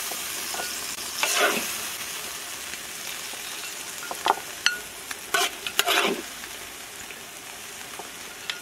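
Braised duck sizzling hot in a wok as a metal ladle stirs and scoops it out, the sizzle slowly fading. There is a scrape about a second in and several sharp clinks of metal on metal between about four and six seconds in.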